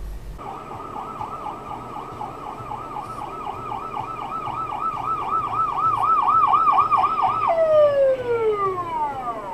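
Emergency-vehicle siren on a fast yelp, rising and falling about three or four times a second and growing louder. About seven seconds in it leaves its cycle and winds down in a long falling glide. A low steady vehicle hum runs underneath.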